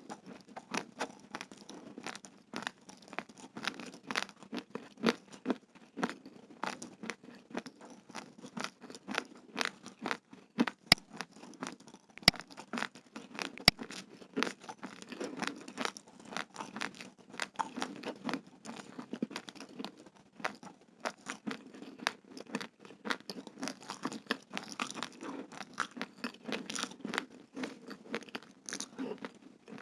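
Close-miked crunching of raw, uncooked fragrant white rice grains being chewed: many sharp, rapid cracks, several a second, with two sharper clicks about halfway through.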